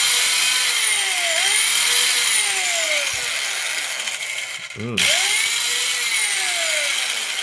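Ginour 4.5-inch trim saw (compact circular saw with a double-reduction gearbox) running free with no cut. The trigger is released briefly about five seconds in, and the motor picks up again at once.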